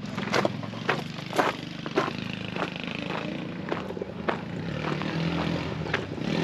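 Footsteps crunching on gravel at a walking pace, about two steps a second, over a steady low hum of a small engine running in the background.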